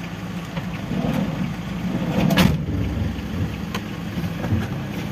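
Toyota Hiace van's engine running at a low, steady idle, heard from inside the cabin, with one sharp clunk about halfway through.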